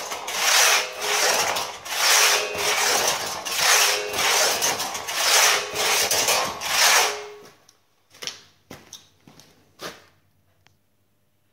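Hand crosscut saw with pegtooth-pattern teeth bucking a log, rasping through the wood with steady back-and-forth strokes. The sawing stops about seven seconds in, followed by a few sharp knocks.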